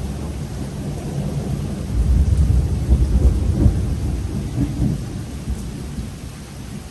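A low roll of thunder over steady rainfall: the rumble swells about two seconds in, peaks a second or so later and dies away before the end.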